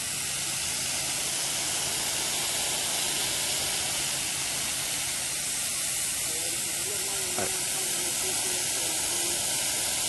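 Steady hiss of a garden hose spray nozzle, its jet of water splashing onto a porous black bunker liner and draining into it.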